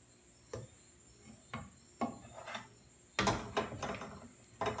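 Kitchen utensil knocking and scraping against a dish as cooked chicken is scooped out: a few separate clacks, then a louder cluster of knocks about three seconds in.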